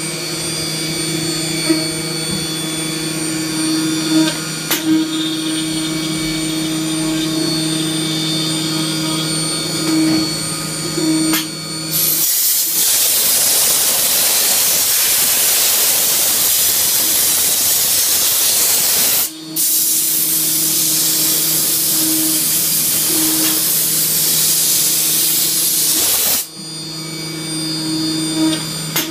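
Haas Super Mini Mill running a 4-axis milling program: a steady machine hum with high whining tones. About twelve seconds in, a loud hiss takes over for roughly fourteen seconds, breaking off for a moment about halfway through, and then the hum comes back.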